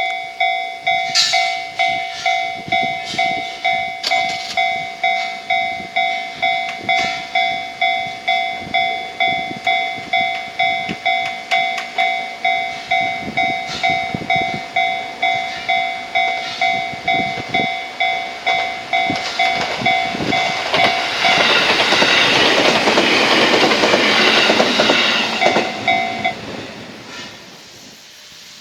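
Japanese level-crossing warning bell ringing about twice a second. A train runs past loudly for about five seconds near the end, and the bell stops soon after it has passed.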